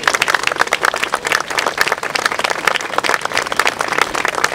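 A small crowd applauding, with many overlapping hand claps.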